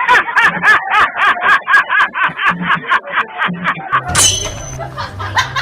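Rapid, high-pitched laughter in quick repeated bursts, about five or six a second. About four seconds in, music with a pulsing bass line comes in.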